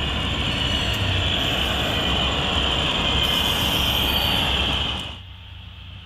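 HO-scale model train running on the layout: a steady rumble with a high whine over it, which cuts off abruptly about five seconds in.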